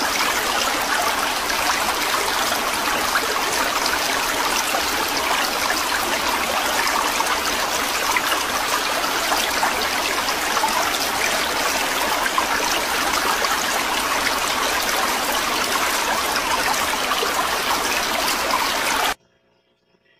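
Aquarium sponge filters bubbling, air streaming up their lift tubes in a steady fizzing rush of water, which cuts off suddenly about a second before the end.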